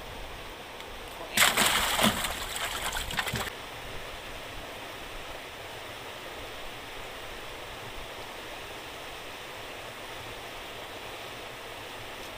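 Water rushing steadily out of a fish-pond outlet gate, broken about a second and a half in by roughly two seconds of loud splashing as a large caught fish thrashes at the water's surface.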